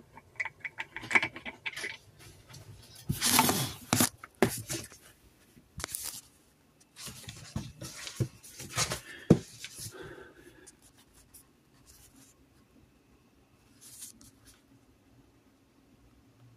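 Handling noise from a phone being moved about: rubbing, rustling, clicks and knocks, loudest in two bursts in the first half, then dying down after about ten seconds.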